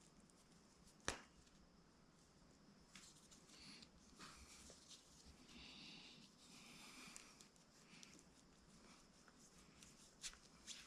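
Faint rustling and scraping of a lace being worked through a sandal's sole by hand, with one sharp click about a second in.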